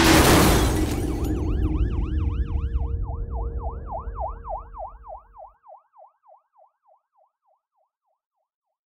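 A loud rush of noise at the start over a low rumble, then a fast yelping emergency-vehicle siren, about five wails a second, that fades away to nothing.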